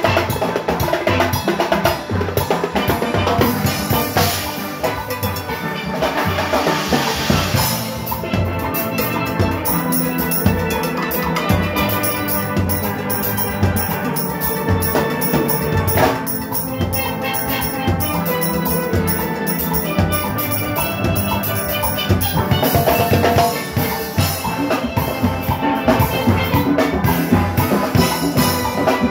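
Steel orchestra playing live: steelpans over the engine room, the band's rhythm section of drum kit, cymbals and timbales, keeping a steady driving beat.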